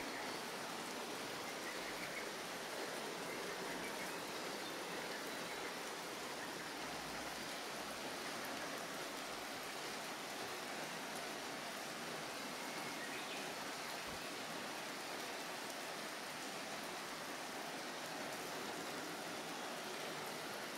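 Steady rain falling on leaves and wet pavement: an even hiss with no breaks.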